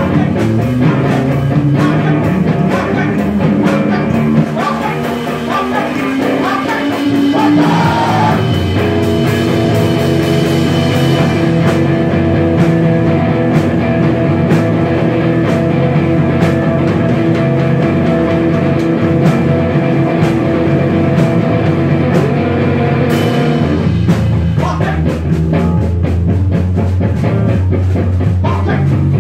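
A live rock trio of electric guitar, electric bass and drum kit playing loudly. A rising note glides up about five seconds in, then a long held chord rings through the middle while the drums keep going.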